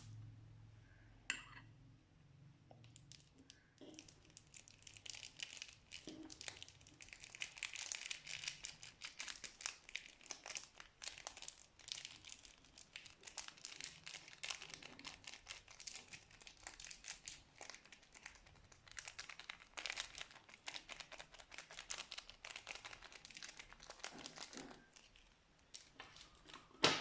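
Hands working slime in plastic piping bags: dense, fast crinkling and crackling that starts about four seconds in and dies down near the end.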